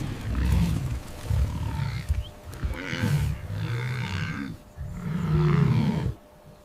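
A large animal's deep growls, several in a row, the longest and loudest about five seconds in, cutting off suddenly shortly before the end.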